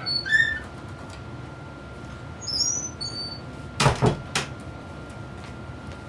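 A door creaking open, with short high hinge squeaks, some sliding upward in pitch, near the start and again about halfway through. Then come a few loud knocks close together about four seconds in, over a faint steady hum.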